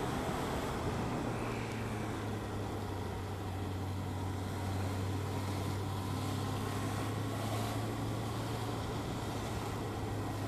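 Suzuki Bandit's inline-four motorcycle engine running at steady low revs, heard from the rider's helmet, over a steady rush of wind and wet-road noise.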